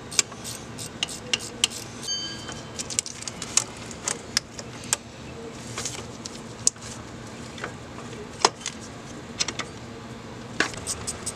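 Ratchet wrench clicking on the vacuum pump's top mounting bolt as it is worked loose: scattered sharp metallic clicks, then a quicker, even run of ratchet clicks near the end.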